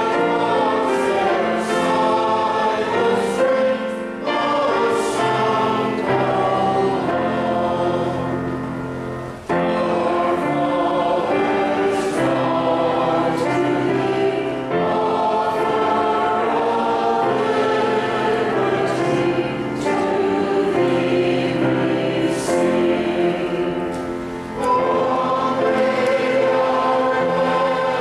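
Church congregation singing a hymn together, many voices in long held phrases, with short breaks between lines about 4, 9 and 24 seconds in.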